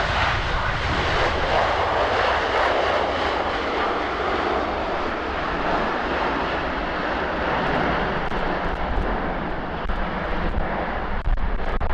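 Airbus A330-243 airliner's Rolls-Royce Trent 700 jet engines, a steady broad roar that thins slightly near the end, over a low rumble.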